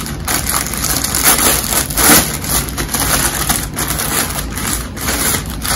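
Clear plastic packaging bag crinkling and crackling as it is handled and opened, with a louder run of crackles about two seconds in.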